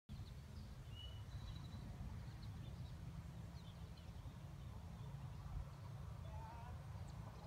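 Steady low rumble with faint, scattered bird chirps.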